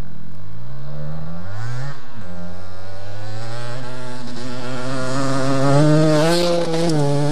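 Yamaha DT 125's single-cylinder two-stroke engine revving: two short blips in the first two seconds, then a long climb in pitch as it accelerates, loudest about six seconds in and easing off just before the end.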